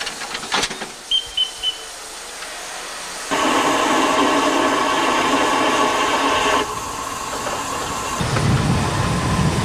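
Narrow-gauge steam locomotive, a DR class 99.77 tank engine, sounding its whistle: a steady chord lasting about three seconds that cuts off sharply. Before it come a few clanks and three short high peeps, and near the end a low rumble as the train runs.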